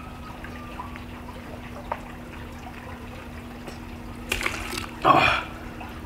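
A man drinking from a glass, liquid sounds over a steady low hum, then two short loud noisy bursts about four and five seconds in, the second the louder.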